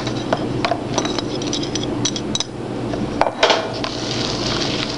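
Rubber spatula folding thick muffin batter in a plastic mixing bowl: wet scraping and clicking against the bowl, with a brief run of light clinks and a few sharper knocks a little after halfway.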